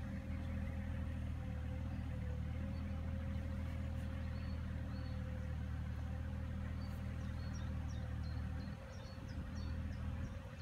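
Mini excavator's diesel engine running with a steady low hum, easing briefly near the end. Faint bird chirps sound over it.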